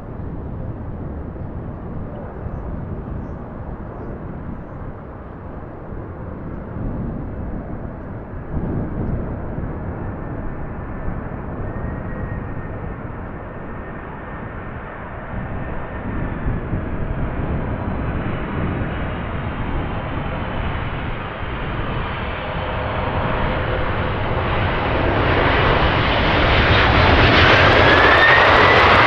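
Jet engines of a four-engine Lufthansa Boeing 747-400 growing steadily louder as the airliner approaches, over a low rumble. A high whine rises over the last few seconds as it draws closest.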